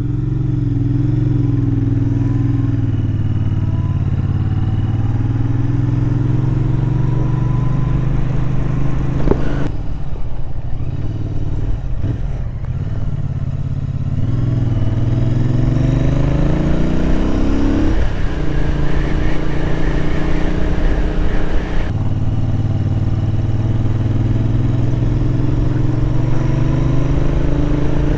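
Royal Enfield Interceptor 650 parallel-twin engine running under way. The engine note is steady, then eases off about a third of the way in. It climbs in pitch twice, breaking off sharply each time as it is shifted up, and settles to a steady cruise for the last few seconds.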